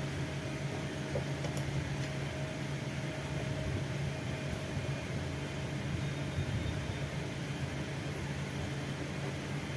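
A steady low mechanical hum, with a few faint clicks about a second or two in.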